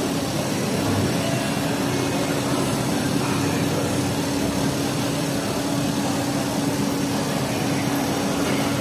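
A steady mechanical hum and rushing noise with one constant low tone and no change in level.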